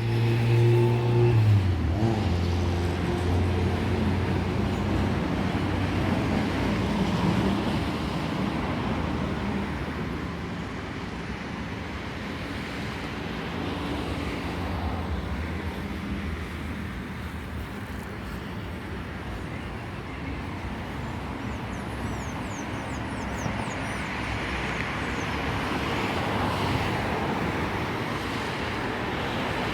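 Steady road traffic noise, with a vehicle engine running close by and loudest over the first two seconds.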